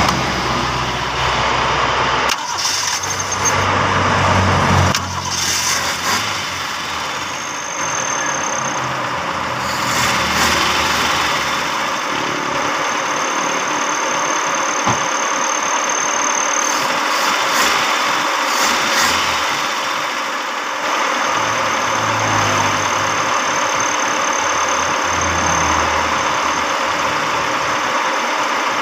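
Carbureted car engine running at idle after a carburetor cleaning, new spark plug and fuel filter, which the mechanic says have given it a good idle again in place of the earlier misfire. The engine note shifts about two seconds in and again about five seconds in, then holds steady.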